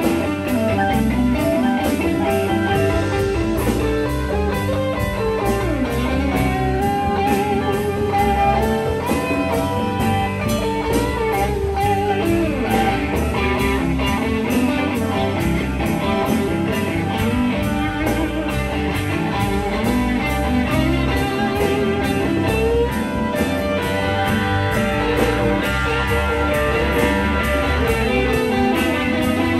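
Live blues-rock band playing an instrumental passage: electric guitar leading with bending notes over a steady bass and drum groove.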